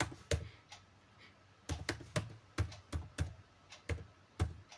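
Typing on a computer keyboard: a few single keystrokes, a short pause about a second in, then a steady run of about three keystrokes a second.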